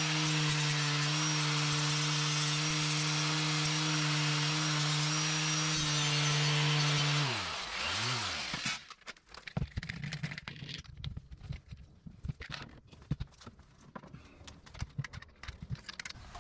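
An electric power tool runs steadily with a hissing, abrasive noise as it works a steel repair plate, then is switched off about seven seconds in and winds down. Light knocks and clatter of handling follow.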